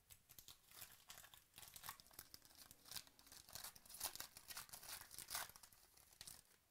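A foil 2017 Chronicles Baseball card pack being torn open and crinkled by hand: a quiet run of quick crackling rips, loudest about four seconds in.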